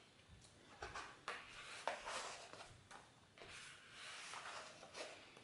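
Pages of a photobook printed on thick matte paper being turned one after another: a run of soft paper swishes and rustles, the sharpest flap about two seconds in.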